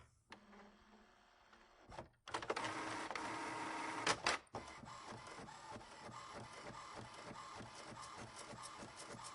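A printer running: a low motor hum at first, a click about two seconds in, then a loud whir of its mechanism for about two seconds. From about halfway it settles into a steady rhythmic chatter of about four or five strokes a second.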